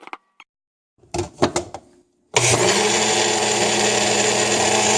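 A few clicks and knocks, then a blender switches on about halfway through and runs steadily, mixing bulletproof coffee.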